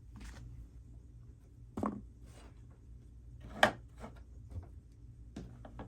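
A few light knocks and taps as a cat door frame is handled and held against a wooden door, the sharpest about two-thirds of the way in, over a faint steady low hum.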